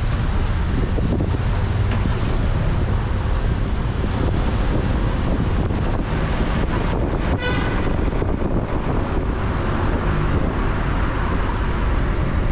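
Steady road and wind noise from a car driving through city traffic, heavy in the low end, with one brief chirp about seven seconds in.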